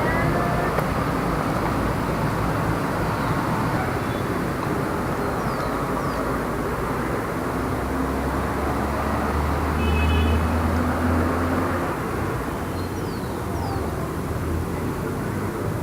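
Light city street traffic: a steady wash of cars passing. About halfway through, a low engine rumble swells and then fades away over a few seconds.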